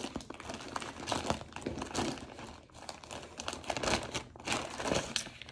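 Clear plastic zip-top bag crinkling in a run of irregular crackles as it is handled and pulled open.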